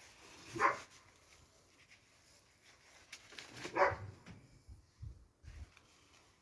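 A dog barking twice, single barks about three seconds apart, followed by a couple of low thumps near the end.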